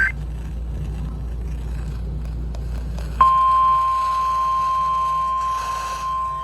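The tail of a SAME digital header burst cuts off right at the start, leaving low radio hum; a little over three seconds in, a steady single-pitch emergency alert tone switches on suddenly and holds, the 1050 Hz weather-radio warning alarm that precedes a tornado warning broadcast.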